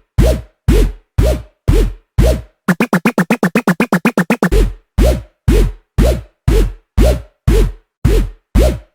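Electronic dance music: a deep drum-machine kick that drops in pitch, hitting about twice a second, broken about three seconds in by a fast drum roll of nearly two seconds before the steady beat returns.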